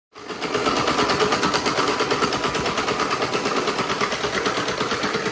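A power tool or small motor running with a fast, even rattle, starting abruptly and holding steady.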